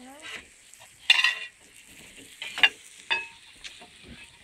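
Bacon and pancakes sizzling on a large round steel griddle, with a few sharp scrapes and clinks of metal utensils against the pan and batter bowl, the loudest about a second in and a short ringing clink a little after three seconds.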